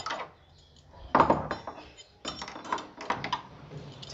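Padlock and metal door latch clinking and rattling as a door is locked: a loud clatter just over a second in, then a run of lighter clicks.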